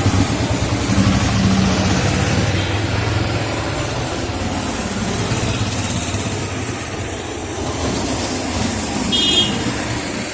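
Road traffic: a motor vehicle's engine running close by, slowly fading as it moves away, with a short high tone near the end.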